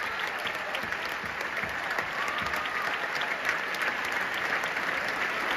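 Large theatre audience applauding: dense, steady clapping from many hands, with a faint brief call from the crowd about two seconds in.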